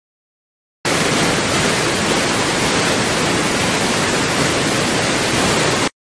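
Loud, steady, even hiss of noise with no tone or rhythm in it, switching on abruptly about a second in and cutting off just as abruptly near the end.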